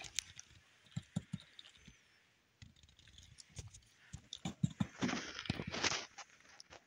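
Cavalier King Charles Spaniel puppies scrabbling and pawing in a fabric-lined basket: scattered soft thumps and clicks, with a louder rustle of bedding about five seconds in.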